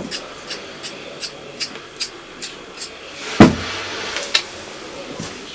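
Potatoes being peeled by hand: a steady run of short scraping strokes, about two and a half a second. The strokes stop after about three seconds, followed by a heavier thump and a single sharp click a second later.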